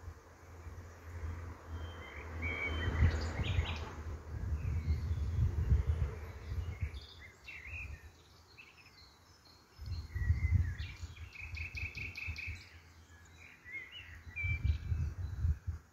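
Small birds chirping and calling throughout, with a quick run of repeated notes about two-thirds of the way through. Three spells of low rumble on the microphone are the loudest sound. The snail's feeding is not audible under them.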